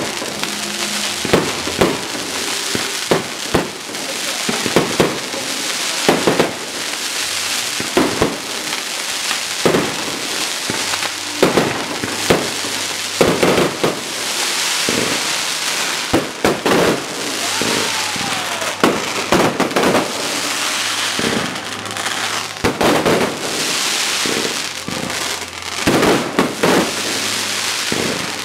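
Fireworks display: aerial shells bursting in a rapid, irregular series of bangs, several a second at times, over continuous crackling from the glittering stars.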